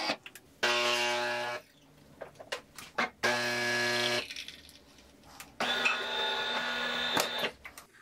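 DeLonghi Magnifica ESAM 4200 bean-to-cup machine brewing a single espresso shot. Its pump runs in three separate spells of about a second or more each, with quiet gaps between.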